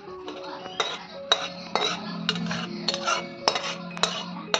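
Metal spatula scraping and knocking against a metal kadai, clearing out the last of a thick chutney, with a sharp scrape or clack about every half second.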